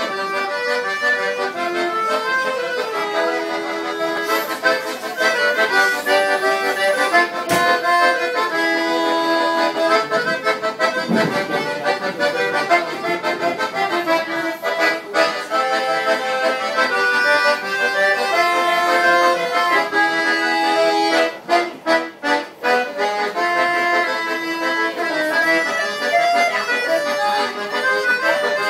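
Accordion playing a tune solo, with sustained notes and chords. About three quarters of the way in there is a brief choppy passage with short breaks between notes.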